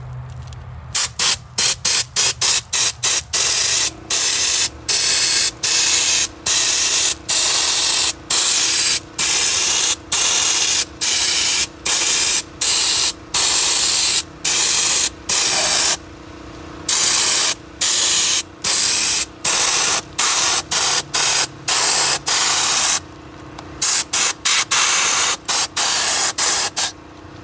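Handheld air-powered sandblasting gun blasting rust off a corroded, holed truck body panel down to bare metal. It fires in repeated hissing blasts, quick short pulls at the start and near the end and longer held blasts in between.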